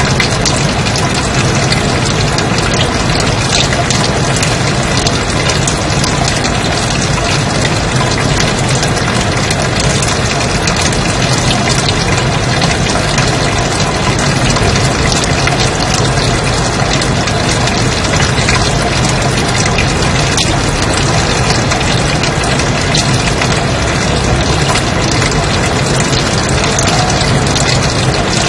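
Steady white noise: an even, unchanging hiss at a constant loud level.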